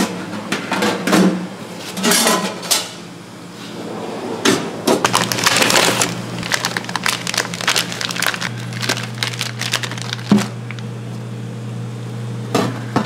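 Burger-kitchen prep: scattered clicks, knocks and crinkling as food and utensils are handled, over a steady low hum.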